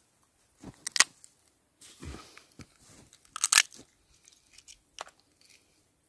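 Crab shell cracking and crunching while crab is eaten by hand, with two loud sharp cracks about one second and three and a half seconds in, and quieter crunching and chewing between them.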